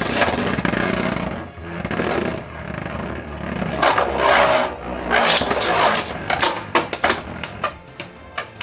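Beyblade Burst spinning tops launched into a plastic stadium, grinding and scraping across the floor. About six seconds in comes a rapid run of sharp clacks as the tops clash.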